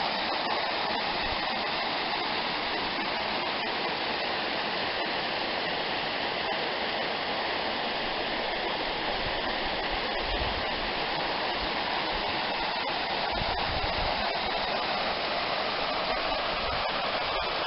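Waterfall: falling water rushing in a steady, unbroken wash of noise.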